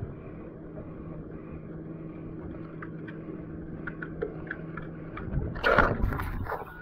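Sea water washing along a surfski's hull with wind on the microphone, under a steady low engine hum that stops about five seconds in. Near the end comes a loud splash and rush of water as the surfski rolls.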